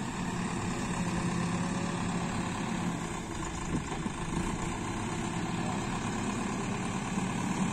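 Escorts Digmax II backhoe loader's diesel engine running steadily near idle, with a light knock or two about halfway through.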